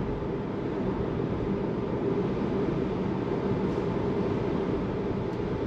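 Steady road and tyre noise heard inside the cabin of a Tesla electric car cruising at about 36 mph, a constant low rumble with no engine sound.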